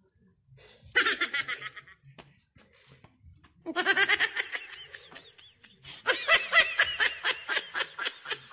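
A man laughing in three quick-fire bouts, each a rapid run of short, high 'ha' pulses. He is writhing from the itch of badyang and alingatong (stinging nettle) rubbed on his skin.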